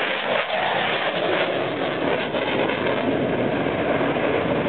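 F-16 fighter jet flying past, its engine noise a loud, steady rush.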